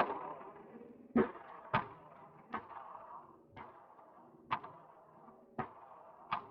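Gunshots, about eight single shots at uneven intervals, each a sharp crack that dies away quickly.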